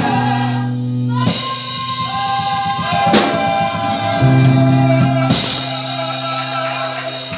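Gospel choir and band: held chords over steady bass notes, with drum hits and cymbal crashes about a second in and again near the end.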